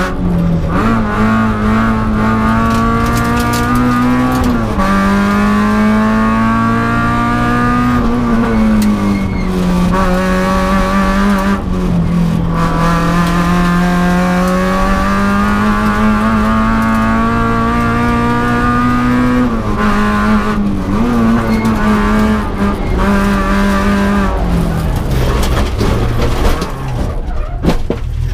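Peugeot 306 Group A rally car's four-cylinder engine under hard throttle, heard from inside the cabin, its revs climbing and dropping through several gear changes. The revs fall away near the end.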